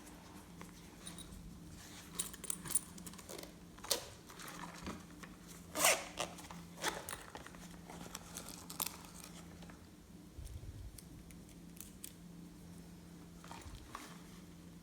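Glossy slime being kneaded and stretched by hand, giving scattered sticky crackles and pops that are busiest in the middle and thin out near the end, over a faint steady hum.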